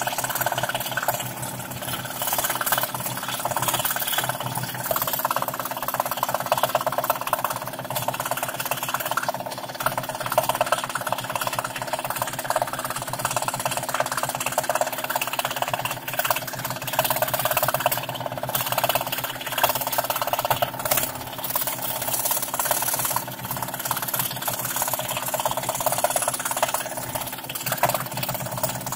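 Scroll saw running steadily, its fine reciprocating blade cutting through thin plywood, with the machine's steady hum underneath.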